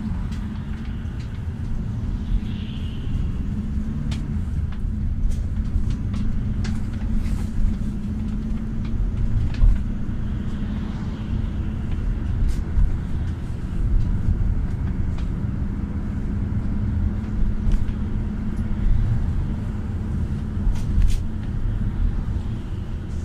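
Cabin noise inside a moving GAZ A64R45 minibus: a steady low engine and road rumble with a constant hum, and occasional light clicks.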